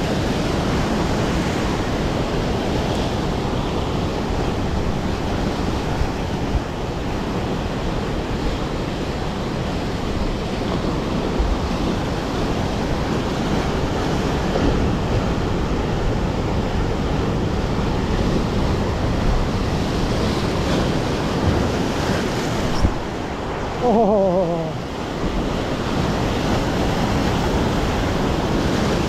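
Surf washing on the shore, with wind buffeting the microphone, as a steady rushing noise. About 24 seconds in comes a brief pitched sound that falls in pitch.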